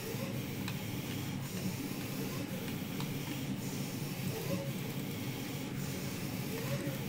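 Steady low background hum and hiss, with a few faint mouse clicks.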